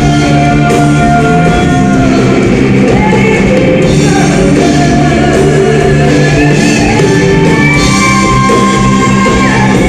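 Live band playing rock music, with a singer holding long notes.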